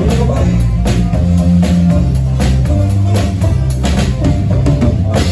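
Live norteño band playing: drum kit keeping a steady beat under guitars and bass notes.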